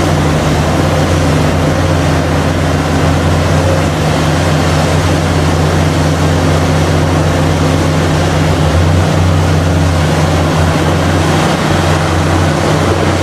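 Caterpillar 6015B hydraulic mining excavator's diesel engine running under working load: a loud, low, steady drone with no distinct knocks or breaks.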